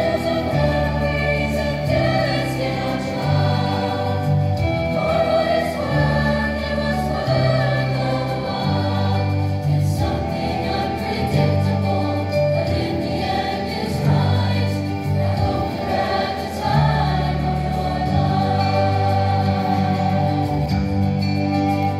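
A large mixed high school choir singing a song in several-part harmony, held notes moving through chord changes.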